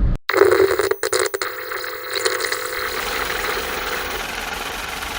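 A car engine running steadily. It cuts in abruptly just after the start, with a few brief dropouts in the first second and a half.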